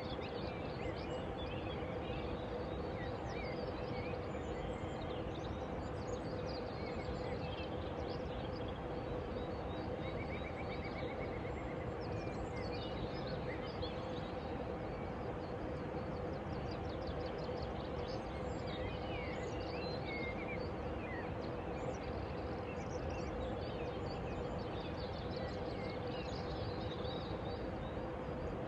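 Small birds chirping and calling on and off over a steady rushing background with a faint low hum, with a short buzzy trill about ten seconds in.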